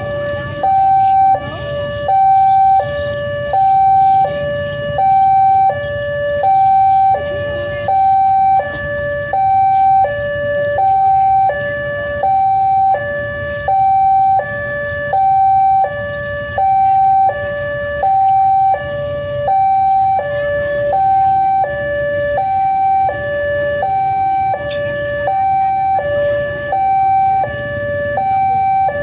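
Indonesian railway level-crossing warning alarm sounding with the barrier down. It is an electronic two-tone signal that alternates steadily between a higher and a lower note, each about half a second long, and it warns that a train is approaching. A low rumble of street traffic runs underneath.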